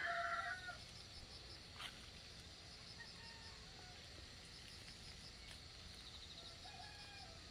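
A rooster crowing: the held end of a crow fades out within the first second, then shorter, fainter calls come about three seconds in and again near the end.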